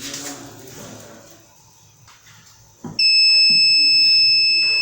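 Fire alarm sounder switching on about three seconds in with a loud, steady, high-pitched tone.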